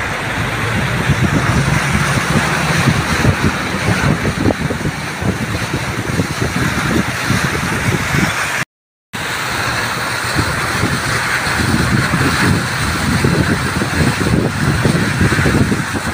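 A car driving through floodwater covering the road, its tyres throwing up a continuous rushing, splashing spray along with the vehicle's running noise. The sound cuts out completely for a moment about halfway through.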